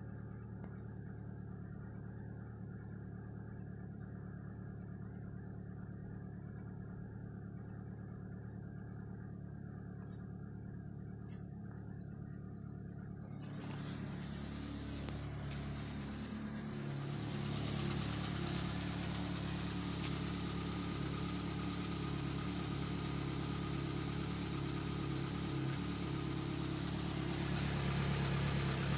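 Ford Focus 1.8i four-cylinder petrol engine idling steadily at about 1000 rpm. It is first heard muffled from inside the cabin, then louder and fuller from the open engine bay from about halfway through.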